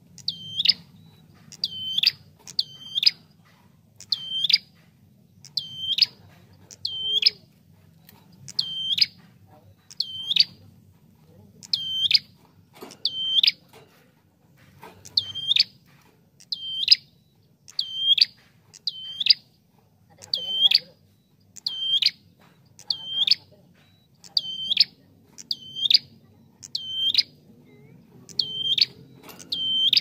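Red-headed prenjak (ashy tailorbird) giving a loud, sharp call over and over, about once a second and sometimes in quick pairs, each note a short high sweep that drops and hooks.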